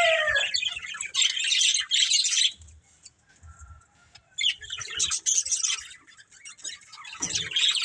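Budgies chattering and chirping in quick, busy bursts, with a quieter gap of about two seconds in the middle. A long, held call slides down in pitch and ends in the first half-second.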